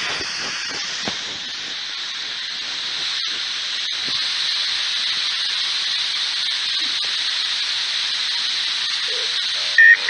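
Steady hiss of radio static from a ghost radio (spirit box). A short, louder tone breaks in near the end.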